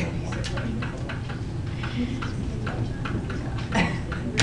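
Stylus tapping and scratching on a tablet screen while writing by hand: irregular light clicks, a few a second, over a steady low hum.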